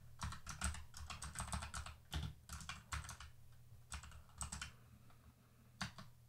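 Typing on a computer keyboard: a quick run of keystrokes over the first three seconds or so, then a few scattered keys and a single keystroke near the end.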